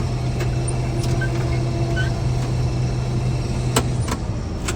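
Combine harvester running steadily under load, heard from inside the cab, while its unloading auger tops off a grain cart. A low steady hum dominates, with a few sharp clicks near the end.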